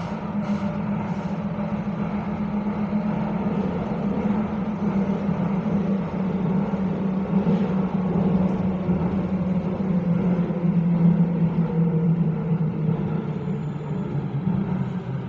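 Copenhagen Metro driverless electric train running through a tunnel, heard from inside the car: a steady rumble of wheels on rail under a low motor hum. The hum falls in pitch over the second half as the train slows for the next station.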